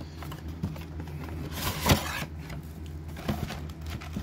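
A steady low hum with brief handling noises over it: a short rustle ending in a sharp knock about two seconds in, and a fainter rustle or tap near the end.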